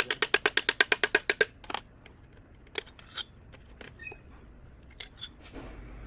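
Engine-teardown tool and parts handling: a rapid, even run of about a dozen sharp metallic clicks, roughly ten a second, over the first second and a half, then a few scattered single clinks and taps of metal.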